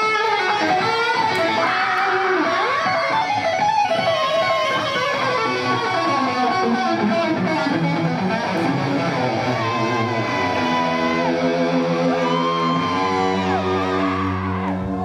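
Electric guitar played live, a black Les Paul-style guitar through an amplifier: bent notes and quick runs at first, then settling into held chords about two-thirds of the way in, with a low note joining near the end.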